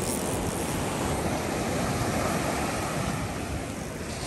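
Steady rush of wind on the microphone mixed with surf breaking on the beach.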